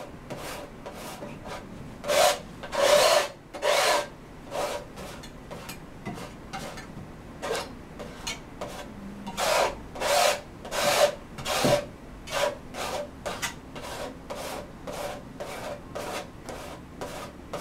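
Palette knife scraping and spreading paint across a stretched canvas in a run of short, uneven strokes, the loudest a few longer scrapes about two seconds in and again around ten seconds in.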